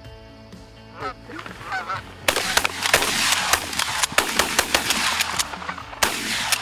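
Canada geese honking as a small flock comes in over the decoys. About two seconds in, a rapid volley of shotgun shots breaks out, with more shots near the end and the geese still calling among them.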